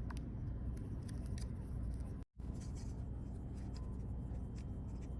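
Faint scratching and clicking of a hand tool picking old display adhesive off an iPhone 11 Pro Max frame, over a steady low hum. The sound cuts out completely for a moment a little over two seconds in.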